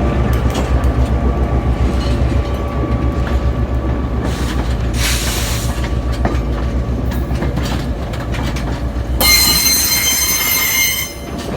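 Train of Budd rail diesel cars towed by a GP9 diesel locomotive rolling slowly past. A low rhythmic diesel throb fades over the first few seconds, wheels click over the rail joints, and near the end a high-pitched wheel squeal lasts about two seconds.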